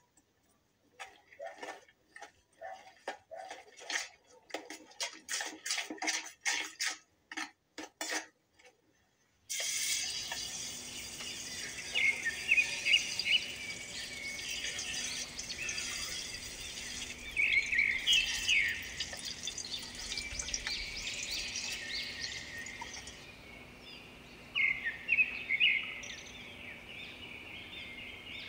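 A metal spoon scrapes and clinks in a plastic bowl in short irregular strokes, stopping about eight seconds in. Then a frying pan of batter fritters sizzles steadily in oil, with birds chirping in three short bursts.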